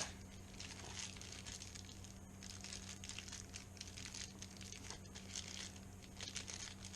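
Packaging crinkling and rustling in irregular small crackles as lock parts are taken out and handled.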